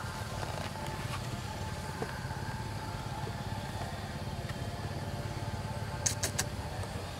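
A steady low rumble, like a motor running, with three sharp clicks about six seconds in.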